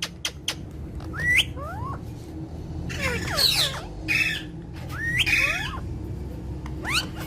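Yellow and green parrots calling: short rising whistles and sharp clicks, with a few harsh squawks around the middle.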